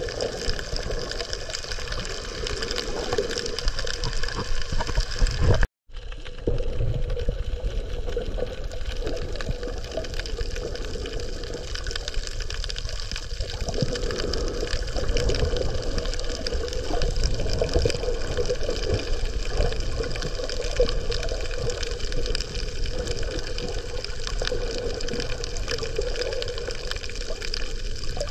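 Muffled underwater water noise picked up by a camera in the sea, steady, cutting out for a moment about six seconds in.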